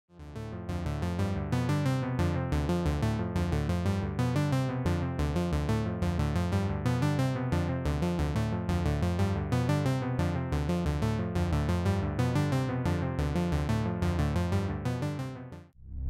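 KORG Monologue analog monophonic synthesizer playing a fast sequenced pattern of short notes, about four a second, run through a Donner Yellow Fall delay pedal so the notes are echoed. The pattern stops just before the end.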